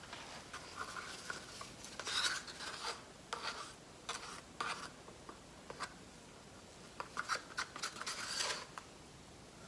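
Irregular scraping and rubbing as cups of mixed pouring paint are handled: a run of short scratchy strokes that comes and goes, busiest about two seconds in and again toward the end.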